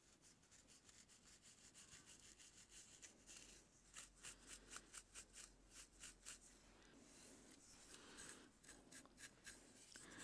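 Wooden comb teeth and long acrylic nails scratching through hair and along the scalp at a parting: a faint run of quick, short scratchy strokes, busiest in the middle.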